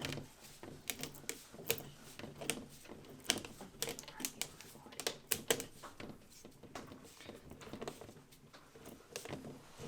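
Thin steel can of a Fram XG16 oil filter being cut open with a filter cutter: a run of irregular metallic clicks and crunches, several a second.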